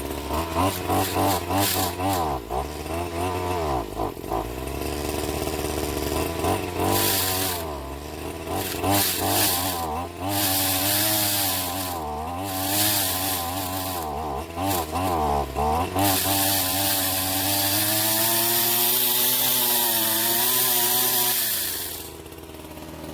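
Gas weed eater engine driving a pole saw attachment, revving up and down as the saw cuts tree branches. The engine holds a steadier pitch later on and drops away near the end.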